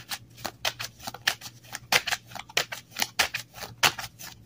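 A tarot card deck being shuffled by hand: an uneven run of sharp card snaps and flicks, several a second.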